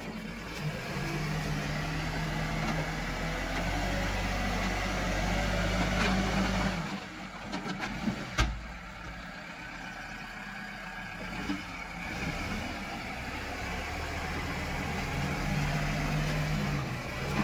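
Diesel engine of an Escorts Digmax backhoe loader running under load as the front bucket pushes soil; the engine eases off about seven seconds in, with a few knocks and one sharp knock, then builds again.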